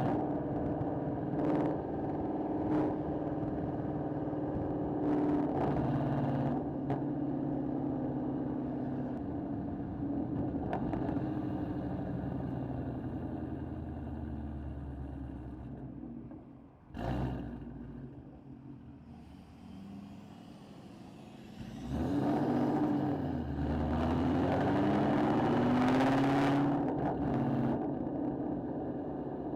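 Ford Mustang engine with aftermarket headers running under load while driving. The note drops away about seventeen seconds in and stays quieter for a few seconds, then the revs rise again as it accelerates.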